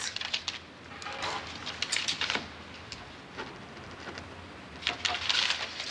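Faint paper rustling and pen scratching as a registered-mail receipt is signed, with a few small clicks of handling.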